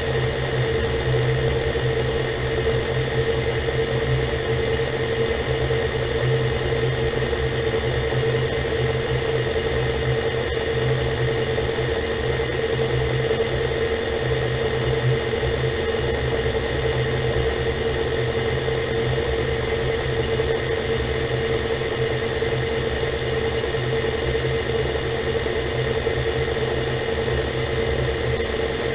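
Electric stand mixer running steadily at an even pitch, its flat beater creaming butter and sugar in a steel bowl as egg yolks are added.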